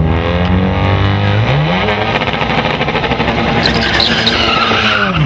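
Car engine accelerating: its pitch climbs about a second and a half in, holds high, then drops near the end. A higher-pitched sound rides over it in the last couple of seconds.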